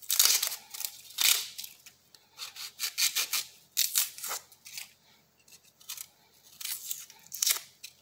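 Dry, papery outer skin of an onion being peeled off by hand, crackling and tearing irregularly with short pauses between.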